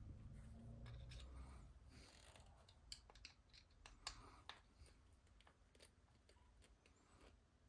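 Near silence with a scatter of faint, sharp clicks and ticks from small tools and parts being handled on the workbench, most of them between about three and five seconds in.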